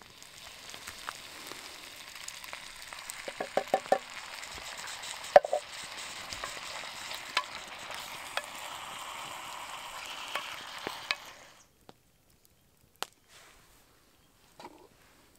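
Venison and vegetables sizzling in a cast-iron camp oven on hot coals, with a wooden spoon stirring and knocking against the pot several times. The sizzle cuts off suddenly about three-quarters of the way through, and a couple of faint clicks follow.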